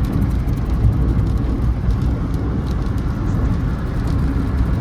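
Steady low rumble of a vehicle on the move in heavy rain.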